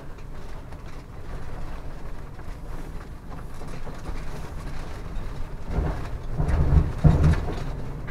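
Class C motorhome creeping over a rough dirt road, heard from the cab: a low road rumble with rattling. About six to seven seconds in it gets louder and rougher, a scraping bump as the long rear overhang drags on the ground.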